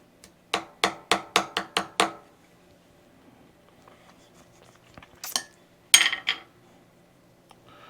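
A run of seven quick, light metal taps, about four a second, then two louder metallic clatters around five and six seconds in, as small metal parts and tools are handled on the workbench.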